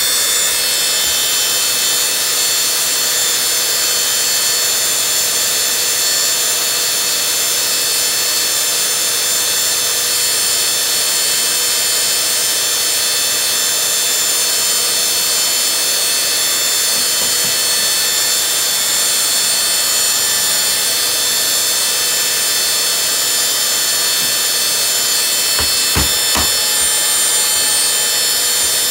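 Steady whir of a small electric motor with a high whine running throughout, and a few sharp knocks near the end.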